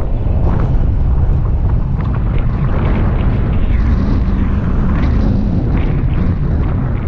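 Wind buffeting an outdoor camera's microphone: a heavy, steady, low rumble of noise.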